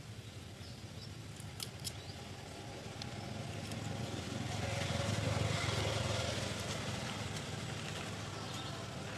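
A passing motor vehicle's engine swells to its loudest about five or six seconds in, then fades. A few light clicks come about a second and a half in.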